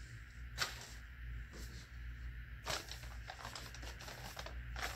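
Paper being handled: a cut sheet of patterned paper set on the open notebook and a notebook page turned over, with three short sharp rustles, the loudest about half a second in, over a steady low hum.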